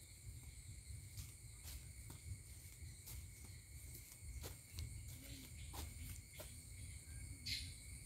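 Steady high-pitched chorus of insects in woodland, with scattered faint clicks and a sharper click near the end.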